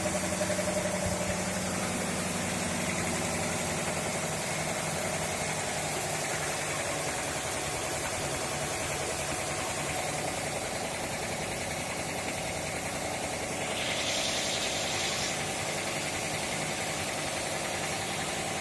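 Fire pump engine running steadily while it drives water through hydroelevators. About 14 seconds in, a short hiss rises over it for about a second and a half.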